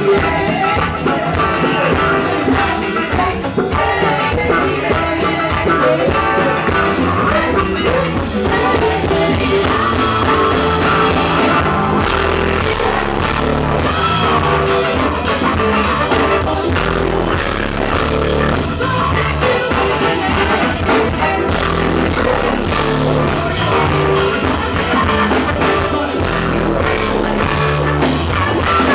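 Live funk band with a horn section (baritone saxophone and trumpet), guitars, keyboards, bass and drums, playing loudly with singing.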